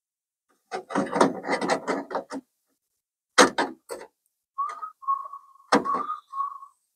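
Sheet-metal repair patch clattering and scraping as it is handled and offered up against the car's rear body panel, with a few sharp knocks. Near the end come a few short whistled notes.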